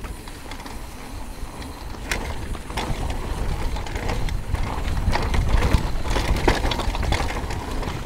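Mountain bike descending a dirt trail at speed: tyre noise and wind rumble that build louder as it speeds up, with scattered clunks and rattles from the bike over bumps.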